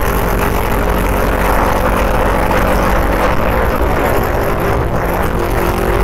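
Motorcycle engine running at a steady cruising speed under a continuous rush of riding noise, recorded on the moving bike.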